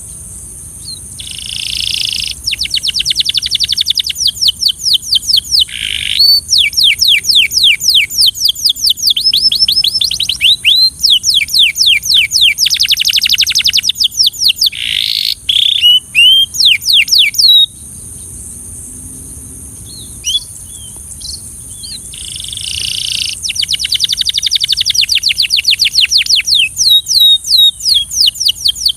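Canary singing in long, rapid trills of fast repeated downward-sweeping notes, with a short break in the middle where only a few scattered notes sound, then a fresh trill near the end. A steady high hiss runs underneath.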